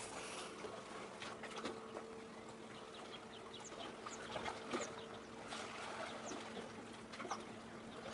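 Open-air waterfront ambience: a steady low machine hum under a soft wash of noise, with short high chirps scattered throughout.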